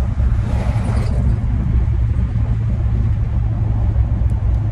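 Steady low road and engine rumble heard inside the cabin of a moving vehicle.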